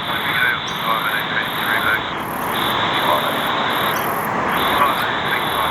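Outdoor ambience: a steady hiss with a high insect chirring that pulses on and off about one and a half times a second, and faint bird chirps.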